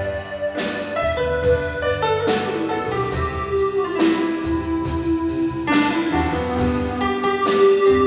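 Piano music played on a digital keyboard and a grand piano: chords struck every second or two, with held notes ringing between them.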